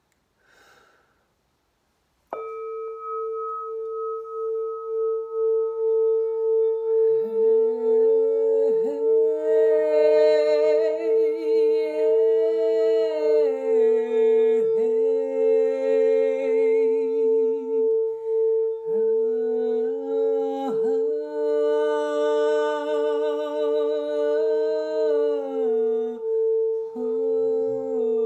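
A red-lacquered singing bowl struck once with a mallet about two seconds in, then rubbed around its rim so that its single tone keeps ringing with a steady pulsing wobble. From about seven seconds a woman's wordless voice hums along in gliding notes, with pauses.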